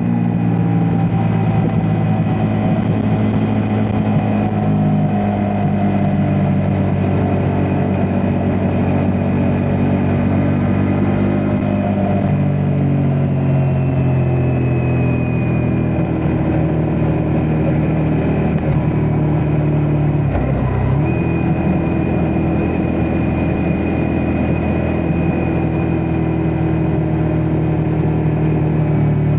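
Ducati Multistrada V4 S's V4 engine running at steady, moderate revs, its note stepping up and down in pitch several times.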